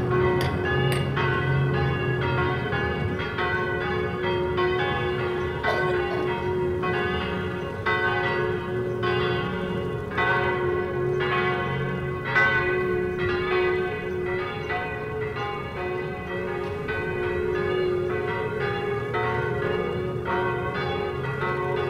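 Church bells pealing: several bells striking in quick succession, about two strikes a second, their ringing overlapping.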